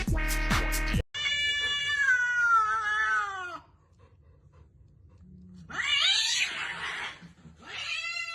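Electronic dance music cuts off about a second in. A cat follows with a long meow falling in pitch, then after a pause a harsher, rougher yowl, and another falling meow near the end.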